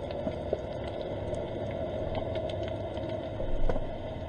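Underwater ambience picked up by a submerged camera: a steady low rush of water with scattered sharp clicks and crackles, and a slightly louder knock about three and a half seconds in.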